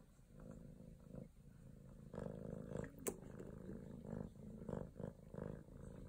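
Calico cat purring at close range, growing louder about two seconds in, in alternating swells. A single sharp tap sounds about halfway through.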